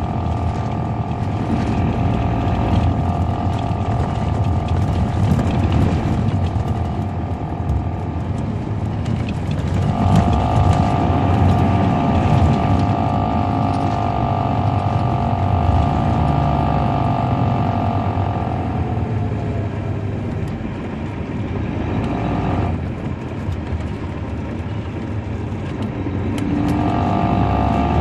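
Caterpillar C13 diesel engine of a 2007 MCI D4500CL coach heard from inside the bus under way, a low rumble with a steady whine over it. The whine grows stronger about a third of the way in, sinks in pitch past the middle, cuts off abruptly, and returns near the end.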